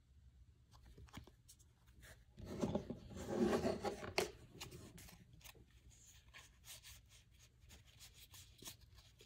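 Baseball trading cards being handled: light clicks and slides of card stock, with a louder rubbing, scraping stretch about two and a half seconds in.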